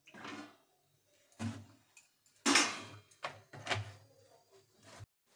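A handful of short knocks and clatters of things being handled in the kitchen, about six in all, the loudest about two and a half seconds in.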